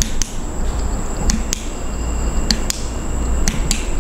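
Short sharp clicks, mostly in pairs, coming about once a second over a steady high-pitched drone of night insects and a low rumble.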